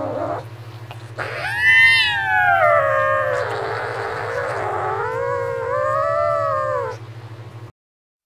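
Cartoon cat sound effect: a cat-like caterwaul. A short call ends just after the start, then a long wavering yowl rises and falls from about a second in, over a steady low buzz. Everything cuts off abruptly shortly before the end.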